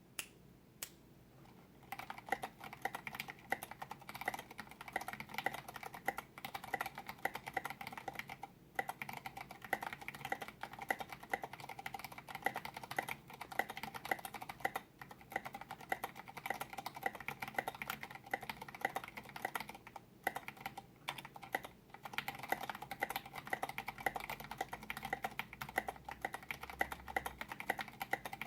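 Typing on an Input Club Kira mechanical keyboard with Cherry MX Vintage Brown tactile switches and Maxkey keycaps: a couple of single key presses, then fast continuous keystrokes from about two seconds in, broken by a few short pauses.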